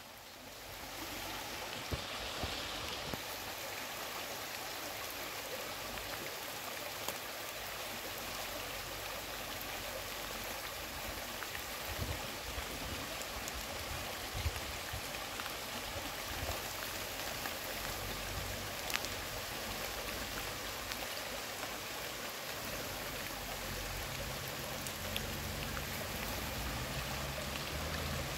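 Steady rain falling on leaves, mixed with the rushing of a small mountain stream swollen by the rain, with a few sharper drop hits now and then.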